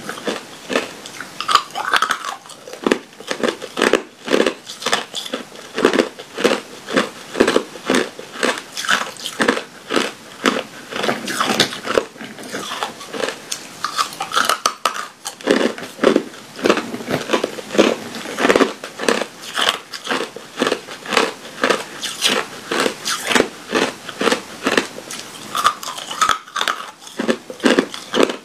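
Clear ice cubes bitten and chewed close to a clip-on microphone: a continuous run of sharp cracks and crunches as the ice breaks between the teeth.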